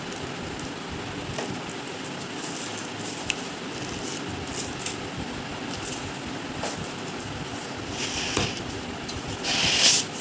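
Unboxing handling noise: plastic-wrapped speakers and polystyrene foam packing rustling and rubbing, with small scattered clicks, over a steady background hiss. Near the end there is a louder rustling scrape as the foam insert is pulled out of the cardboard box.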